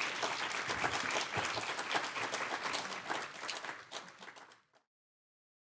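Audience applauding, a dense patter of many hands clapping that fades and stops abruptly about four and a half seconds in.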